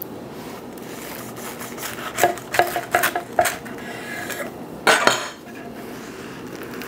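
Large kitchen knife sawing through a toasted burger bun, its blade scraping and tapping on a wooden cutting board in about four quick strokes, then two louder knocks of the knife on the board about five seconds in.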